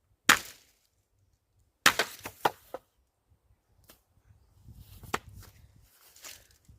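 Wood being chopped or cut: one sharp chop, then a quick run of five or six strikes about two seconds in, followed by soft rustling and scattered clicks, likely footsteps on forest litter.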